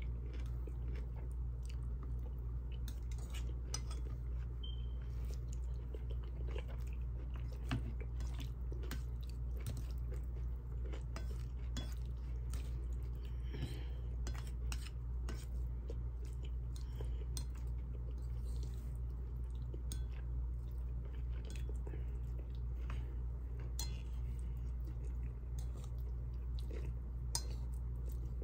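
A person chewing mouthfuls of beef and broccoli, with scattered small clicks and scrapes of a white plastic fork against the dish, over a steady low hum.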